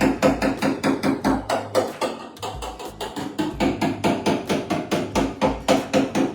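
Rapid, steady hammer blows on the car's sheet-metal body panel, about five strikes a second, each with a short metallic ring, as the panel is worked back into shape. Background music plays underneath.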